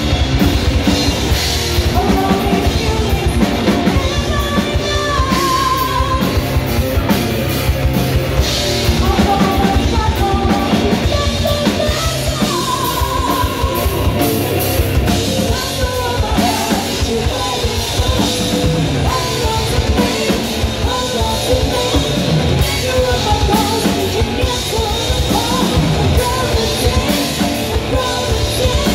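Live heavy metal band playing: electric guitars, bass and drum kit at full volume, with a singer's voice wavering over the top.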